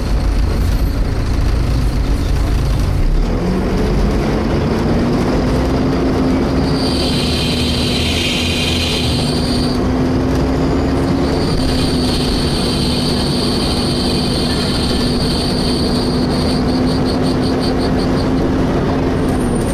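Volvo B7TL bus engine cooling fan spinning up about three seconds in to a steady hoover-like whine over the engine and road rumble. A loud, high-pitched screeching comes in twice over it, the second time for several seconds, pulsing just before it stops.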